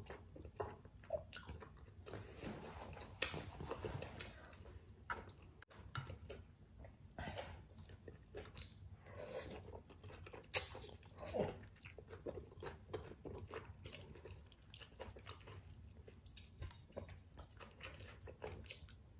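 A person eating spicy ramen with chopsticks: mouth sounds of chewing, with frequent small smacks and clicks and a few louder slurps of noodles and soup, about three seconds in and twice around the middle.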